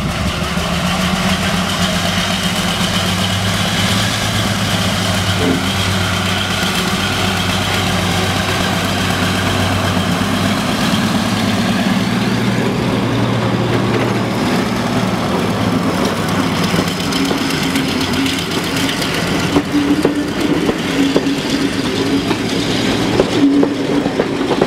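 Class 42 Warship diesel-hydraulic locomotive D832, with twin Maybach diesel engines, pulling away with a passenger train under power. Its engines give a loud, steady, deep drone as it passes close by. From about halfway through, the engine note gives way to the rolling noise of the coaches' wheels on the track.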